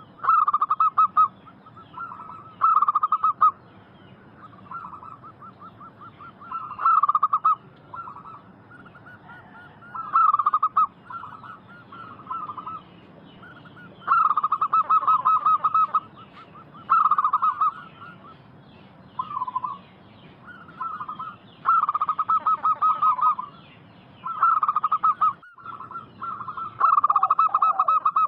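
Zebra doves (local perkutut) cooing: repeated rapidly pulsed, trilling coo phrases about a second long, one after another every second or two, some louder and some fainter as if from more than one bird.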